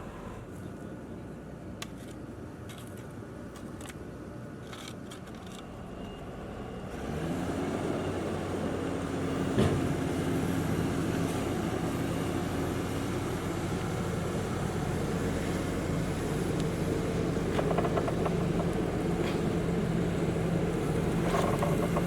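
Diesel engine of heavy paving-site machinery running steadily. It grows louder about seven seconds in, and there is a single sharp knock soon after.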